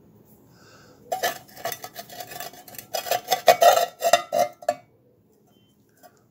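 Metal scraping and rattling as the muffler of a vintage Suffolk small engine is twisted and worked off its exhaust stub: a rapid run of scrapes and clinks with a ringing note that starts about a second in and stops after about four seconds.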